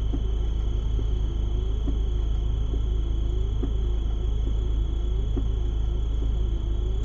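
Cab interior of a Citroën C15 D diesel van driving on snow: a steady low engine and road rumble. Over it, a sweep-and-tick from the windscreen wipers repeats about once a second, and a thin, steady high whine runs throughout.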